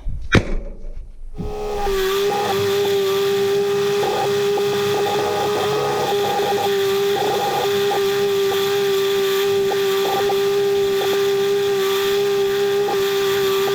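Vacuum cleaner switched on about a second and a half in, its motor whining at a steady pitch, with scattered short rattles and clicks as it picks up debris.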